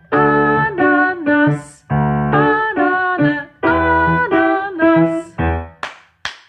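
Electronic keyboard playing a tune in short, steady-pitched notes over a bass part. It breaks off a little before the end, and two sharp clicks follow.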